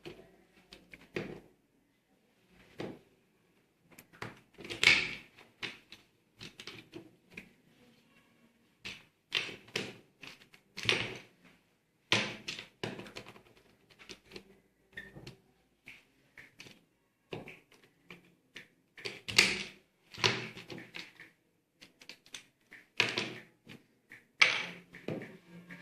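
Plastic pieces of a 3×3 Rubik's cube clicking and knocking as they are fitted back into the cube by hand: irregular sharp clicks in quick clusters with short pauses between.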